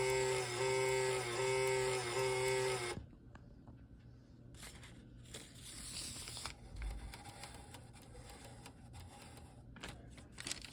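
SAGE EAS ENDEC model 1822's built-in printer printing the alert log line by line: a pitched buzz that dips about every two-thirds of a second, stopping about three seconds in. Faint scattered clicks and rustles follow.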